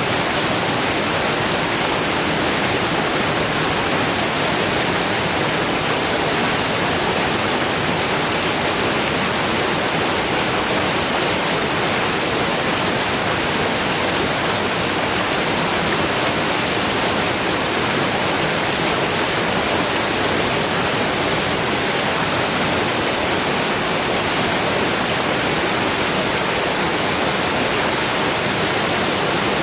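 Steady heavy rain: a dense, even hiss that does not change.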